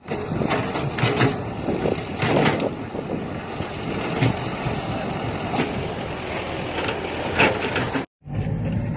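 Heavy earthmoving machinery at work: a diesel machine running under a dense rumble, with repeated sharp knocks and clanks. The sound breaks off briefly near the end.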